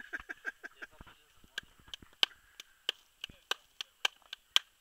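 Hands slapping a ball of flatbread dough from palm to palm to flatten it: quicker, softer pats at first, then sharp slaps about three times a second.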